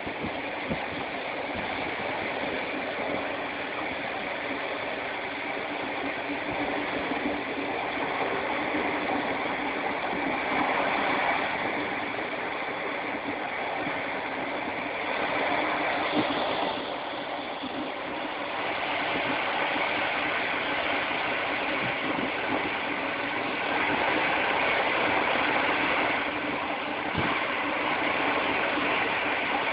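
Steady running noise of a moving train heard on board, with a few faint knocks from the wheels on the track.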